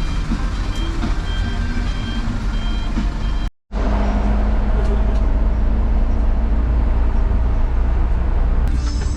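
Reversing alarm of a large vehicle beeping about twice a second over a diesel engine's heavy rumble. About three and a half seconds in the sound cuts, and a louder, steady diesel engine rumble takes over.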